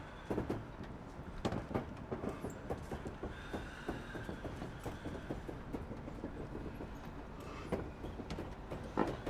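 Chesapeake & Ohio No. 1309, a 2-6-6-2 articulated steam locomotive, rolling slowly while not under steam, with a low rumble and irregular clanks and knocks from its wheels and running gear. A faint squeal comes a few seconds in.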